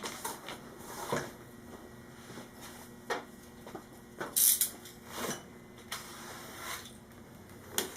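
Scattered clinks and knocks of small metal parts and tools being handled during motorcycle rear-axle and chain-adjuster work, loudest a little over four seconds in.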